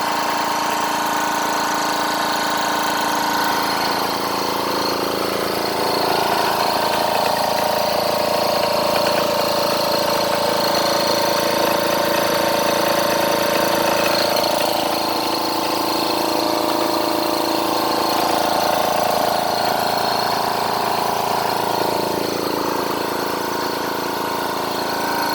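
Twin-cylinder, water-cooled 4500 psi PCP high-pressure air compressor running steadily as it builds pressure, a quiet, even mechanical hum with a slight swell in its tone now and then.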